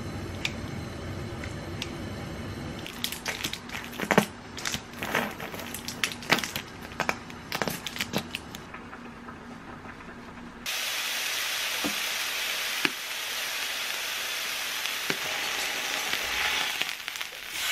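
Slices of Korean beef (hanwoo) sizzling on a hot grill pan, a steady hiss that starts suddenly about eleven seconds in and runs on with a few light tong knocks. Before that there is a run of sharp clicks and light knocks from handling in the kitchen.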